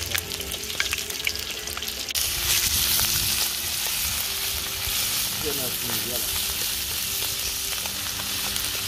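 Qeema (minced meat with onions) frying in oil in a pan, a steady sizzle that grows louder about two seconds in.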